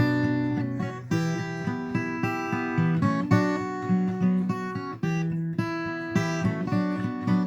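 Guitar music: chords and notes plucked and strummed, changing every second or so.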